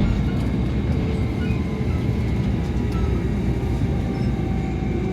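Steady low rumble of a Tama Monorail car running along its track, heard from inside the cabin; the cars ride on rubber tyres straddling a concrete beam.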